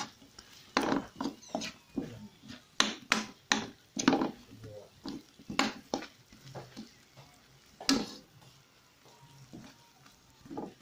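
A cooking utensil stirring fried sweet potato chunks through caramelized sugar in a metal pan, with irregular scrapes and knocks against the pan that thin out after about eight seconds.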